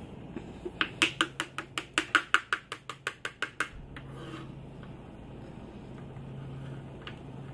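Metal spoon clinking rapidly against a frying pan while beating eggs in it, about six light taps a second for nearly three seconds starting about a second in.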